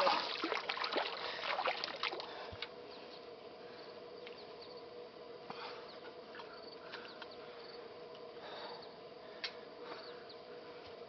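Steady outdoor insect drone with scattered faint ticks, after about two seconds of splashing and clicking at the start.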